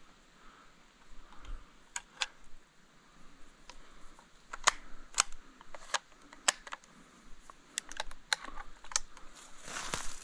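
Footsteps on a dry forest floor, with dry twigs and branches snapping in sharp, irregular cracks from about two seconds in, and a brushing rustle of branches near the end.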